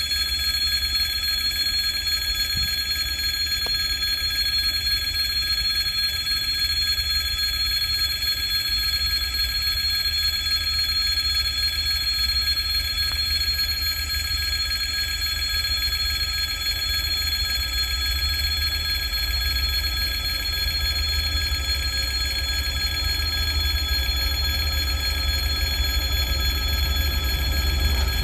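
Continuous bell-like ringing: several steady high tones held unbroken throughout, over a low, even rumble.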